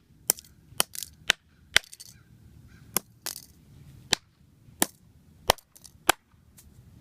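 Repeated sharp blows smashing a fidget spinner, about ten hard cracks at uneven intervals of roughly half a second to a second.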